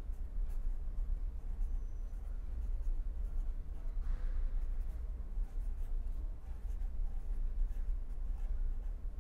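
Felt-tip pen writing on paper: faint, short scratching strokes as a word is written out letter by letter, over a steady low hum.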